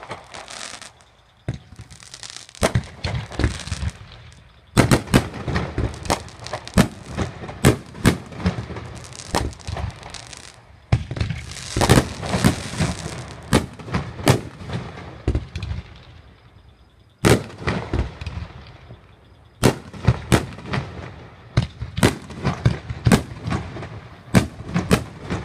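Fireworks going off in a rapid, almost unbroken string of sharp bangs and crackling, with two short lulls.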